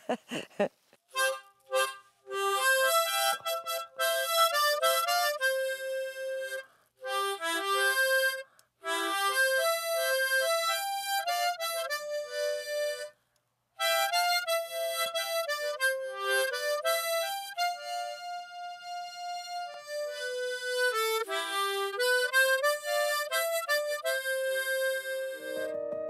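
Harmonica playing a slow song melody, one held note after another, in several phrases separated by short breaks for breath.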